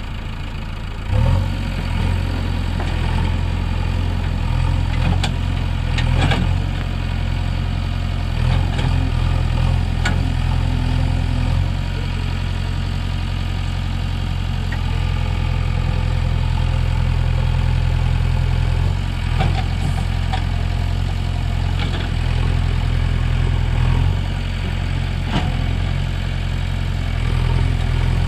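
JCB 3DX backhoe loader's diesel engine running steadily, its speed and load picking up about a second in as the backhoe arm works. Occasional short clanks from the bucket and arm.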